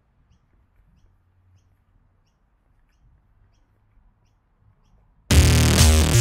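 Near silence with faint, scattered bird chirps, then loud electronic background music with a drum-machine beat cuts in suddenly about five seconds in.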